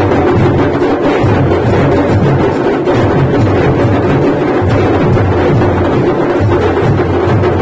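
Several large drums beaten with sticks in a fast, continuous, even beat.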